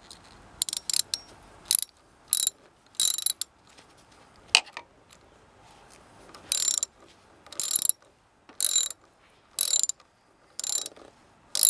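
Ratchet wrench with a 10 mm socket tightening a Jubilee worm-drive hose clip on a turbo intake hose: short bursts of rapid pawl clicks on each back-swing, irregular at first, then about one burst a second.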